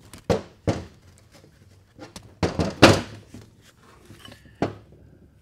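Steel transfer-case parts clunking together as a synchronizer ring and locking collar are fitted onto the mainshaft: a handful of sharp metal knocks, the loudest a little before three seconds in.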